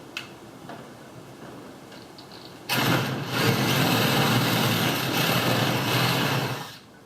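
Electric drill boring into a plywood camper door for a handle hole, starting about three seconds in with a steady loud whir and stopping near the end.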